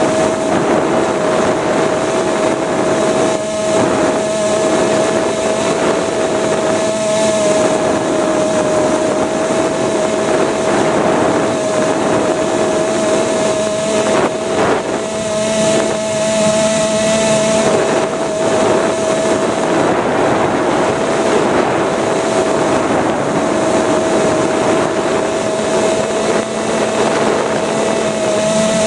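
Electric motor and pusher propeller of a Multiplex Easystar RC plane running steadily in flight: a constant whine, heard from a camera strapped to the airframe, with wind rushing and buffeting over it.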